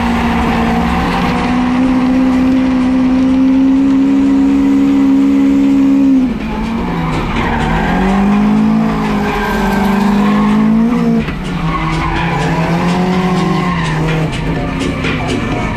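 Drift car engine held at high revs with tyres squealing and skidding; the revs drop about six seconds in, climb again, and drop once more about eleven seconds in, settling lower.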